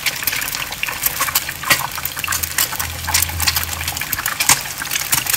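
Eggs frying in hot oil in a nonstick pan: a steady sizzle with frequent sharp crackles and pops of spattering oil. A low hum comes in briefly about halfway through.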